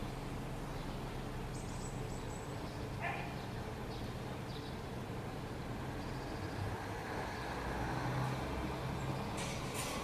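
Steady outdoor background noise with a low hum, like distant traffic, and a few short faint sounds: one about three seconds in and a couple near the end.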